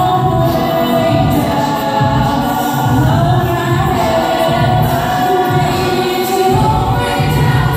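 Group of voices singing a song in harmony, with sustained chords over a low bass that pulses in a steady rhythm.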